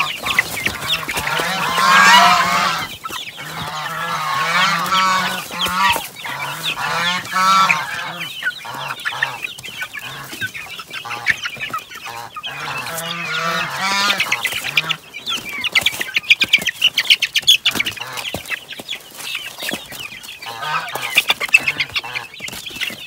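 Young native × Rhode Island Red chicks calling over and over in short curved calls, most densely in the first half. About two-thirds of the way in, a run of scratching and rustling on the cardboard and rice-hull bedding takes over as hands rummage in the box.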